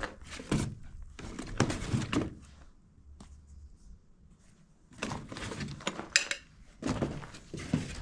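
Shoes being handled and rummaged through in cardboard boxes: irregular knocks of shoes against each other and the cardboard, with rustling, easing off for a couple of seconds in the middle.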